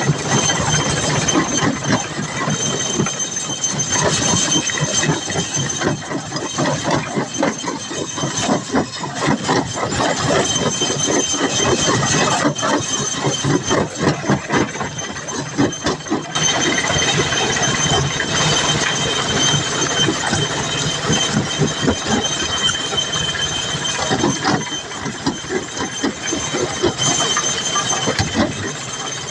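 Heavy machinery running: a continuous, fast clattering rattle with a steady high-pitched squeal held over it.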